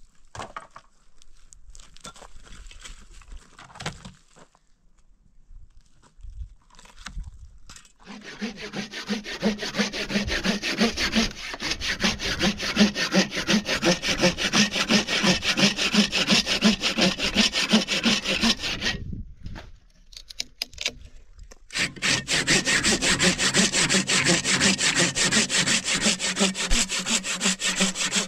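Wood being sawn by hand, in quick, regular back-and-forth strokes of about three a second. The sawing starts about eight seconds in, stops for two or three seconds a little past the middle, then starts again.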